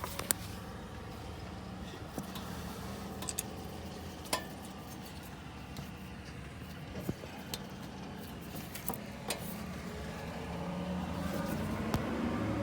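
Light metallic clinks and taps of tools and header parts being handled, scattered over a steady low hum, with a faint rising whine near the end.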